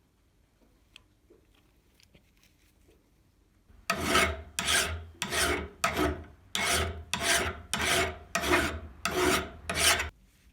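Abrasive rubbing by hand, as in filing or sanding a part: about eleven even back-and-forth strokes, a little under two a second, starting about four seconds in.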